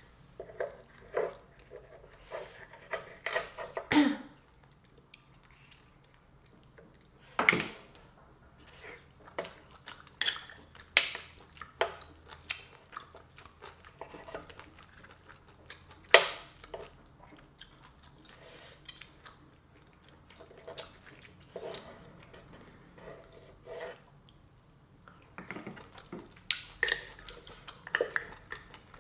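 Eating sounds: chewing of black bean noodles and mussels, broken by scattered sharp clicks and clatters as wooden chopsticks and mussel shells knock against the pan.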